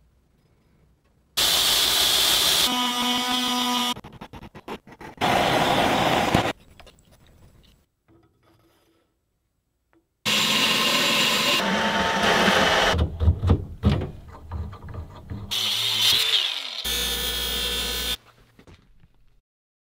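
A run of short workshop clips cut one after another: power tools running in steady bursts of a second or two that start and stop abruptly, with a stretch of sharp clicks and knocks about two-thirds of the way through. Near the end a bench buffing wheel spins against a metal pommel as it is polished.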